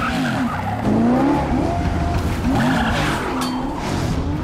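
BMW M3 sedan's engine revving hard, its pitch climbing and dropping back again and again through the gears, with tyres squealing.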